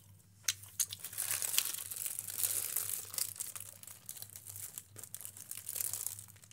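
Thin clear plastic food bag crinkling and rustling as it is handled, a dense crackle that starts about a second in and thins out near the end.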